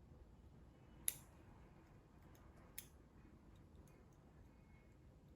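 Two short sharp clicks over near silence, a louder one about a second in and a fainter one near three seconds in: multimeter probe tips tapping against the pins of an engine wiring-harness connector.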